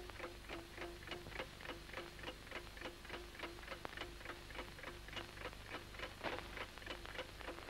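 Fast, even clock-like ticking, about five ticks a second, with a faint low note sounding on alternate ticks.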